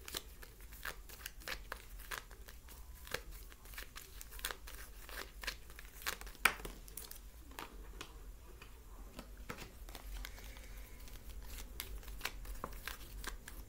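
Tarot cards being shuffled and handled: irregular soft flicks and papery clicks, with one sharper snap about six and a half seconds in.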